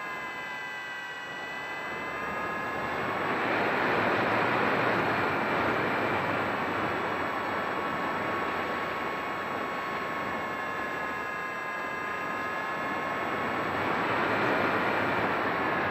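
Motor and propeller of a radio-controlled model airplane, heard from its onboard camera: a steady whine that drifts slightly in pitch, under a loud rush of wind over the microphone that swells about four seconds in and again near the end.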